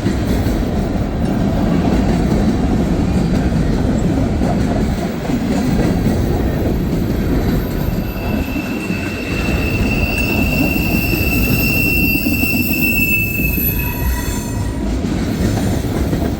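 Freight cars of a long train rolling past, with a steady rumble of wheels on rail. From about halfway through, a high steady wheel squeal rings for several seconds and then fades, typical of wheel flanges rubbing through a curve.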